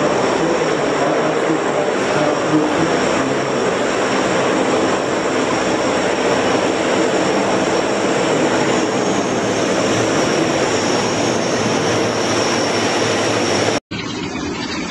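Lockheed C-130 Hercules with its four turboprop engines running as it taxis: a loud, steady propeller drone under a thin high whine. About a second before the end it cuts off abruptly to a quieter, thinner recording.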